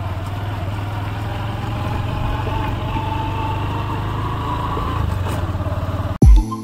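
Motorcycle engine running steadily while riding, with road and wind noise. The sound cuts off suddenly near the end.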